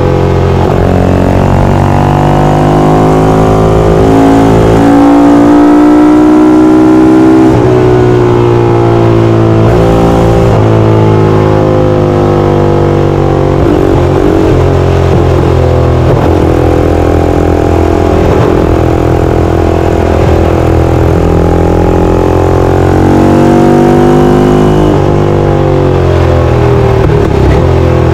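Ducati 450 single-cylinder four-stroke racing engine under hard acceleration, its note rising in pitch with sudden drops at the upshifts, then easing off and pulling up again near the end.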